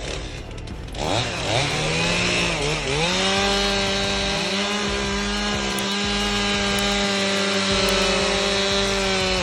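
Chainsaw engine revving unevenly up and down for the first few seconds, dipping once, then running steadily at high speed until it cuts off suddenly at the end.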